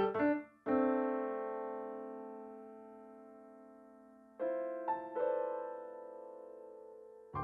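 Slow, soft piano music: a chord struck about a second in rings and fades for several seconds, then a second chord with a few added notes follows about halfway through and fades in turn.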